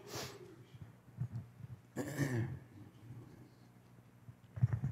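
A person clearing their throat twice, at the start and again about two seconds in, with a few soft low knocks in between and near the end.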